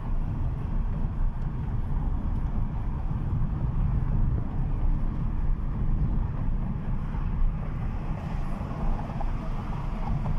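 Steady low rumble of a car being driven at city speed, engine and tyre noise heard from inside the cabin.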